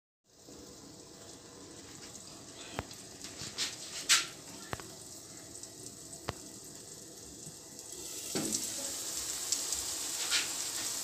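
Tomatoes and onions simmering and sizzling in a covered karahi, a steady hiss with a few sharp pops and clicks. Near the end the glass lid is lifted and the sizzle gets louder.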